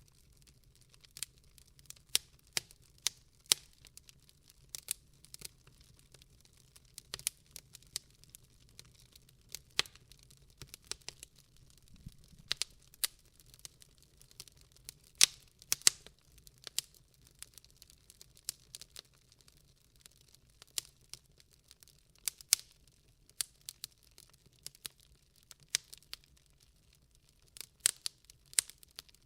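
Wood fire crackling in a fireplace, with irregular sharp pops and snaps, sometimes several in quick succession, over a faint low hum.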